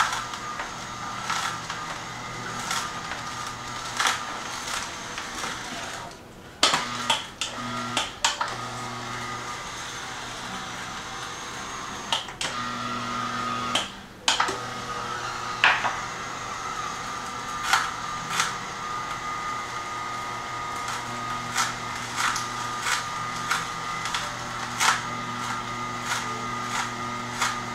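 Horizontal masticating juicer's motor running with a steady hum as stems of poor man's pepper are fed into its auger, with many sharp cracks and snaps as the stalky stems are crushed. The hum breaks off briefly twice, about six seconds in and again about fourteen seconds in.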